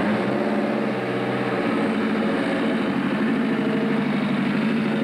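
Engine of a vintage open-wheel race car, the 'FWD Special', idling steadily close by.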